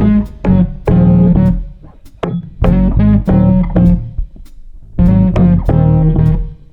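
Background music: plucked guitar and bass playing short rhythmic phrases.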